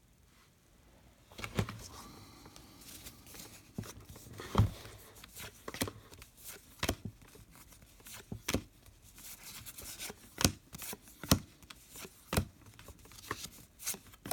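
Trading cards and their packs being handled: light rustling with a run of sharp taps and snaps, roughly one a second, starting about a second in.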